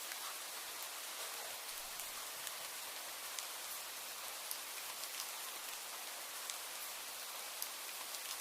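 Steady rain falling: an even hiss with scattered sharp ticks of single drops striking a surface.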